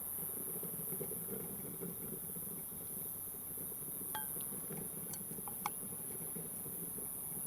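A few light clinks of cookware or utensils, one about four seconds in and two more a second or so later, each with a short ring, over a steady low background rumble.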